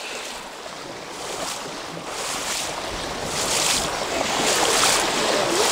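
Rain starting to fall, a hiss that grows louder about two seconds in and is strongest near the end.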